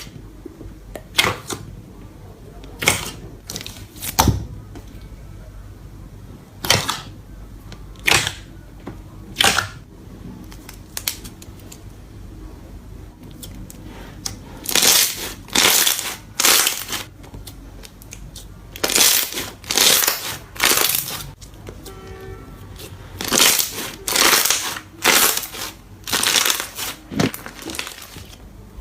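Slime being squeezed and pressed by hand, making a series of short squishes. They are spaced a second or two apart at first and come in quicker clusters in the second half.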